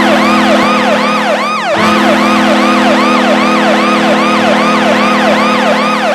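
Washington Capitals' 2007–2010 arena goal horn: a steady low horn blast, broken briefly nearly two seconds in, sounding together with a siren that whoops up and down about three times a second.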